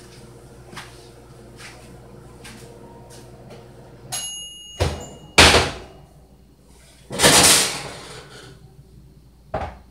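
Oven door being opened and shut and a baking pan handled as a baked pound cake is taken out: a short high tone about four seconds in, then knocks and a bang, a longer loud clatter about seven seconds in, and a last knock near the end.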